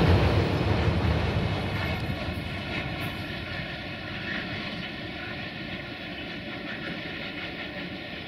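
Freight train rumble fading away over the first few seconds, leaving the steady, even whine of a quadcopter drone's propellers.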